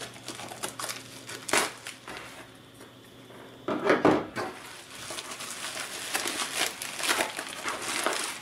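Pink plastic bubble mailer crinkling as it is handled, with a louder bump about halfway through as it is set down on the table, then more crinkling as hands work at the end of the envelope to open it.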